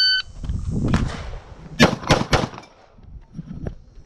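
A shot timer's start beep, then handgun shots: one about a second in, followed by a quick string of about four shots near the middle.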